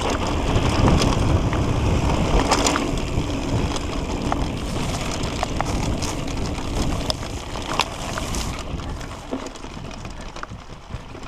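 Mountain bike riding down a dirt trail: wind buffeting the microphone and tyres rolling over dirt, with scattered clicks and rattles from the bike. The noise dies down over the last few seconds.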